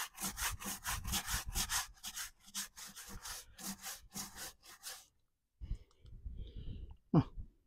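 Sponge scrubbing the rubber sidewall of a tyre in quick back-and-forth strokes, about three a second, working WD-40 into the grimy white lettering; the scrubbing stops about five seconds in, followed by fainter handling rustle and a short knock near the end.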